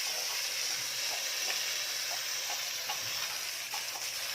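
Water spraying in a steady hiss, washing the coils of a window-type air conditioner.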